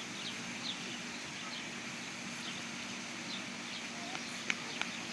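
Small birds chirping again and again in short, high falling notes over a steady background rush, with two sharp clicks near the end.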